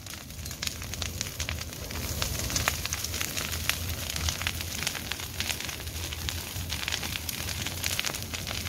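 A large bonfire of dry branches and brush burning hard. It gives a dense, irregular run of sharp crackles and pops over a steady low rush.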